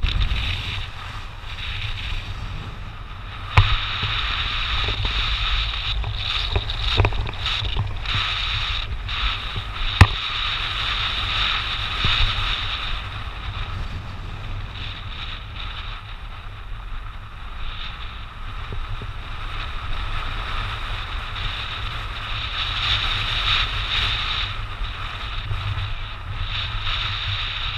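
Steady running noise of a moving vehicle with wind on the microphone, and a few sharp knocks about three and a half and ten seconds in.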